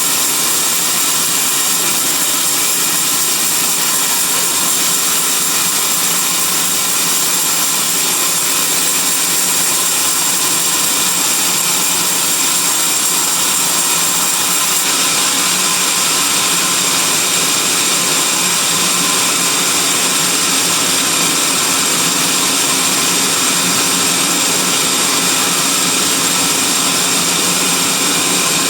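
Band sawmill running steadily, its blade sawing through a teak log: a continuous machine whine over a dense hiss.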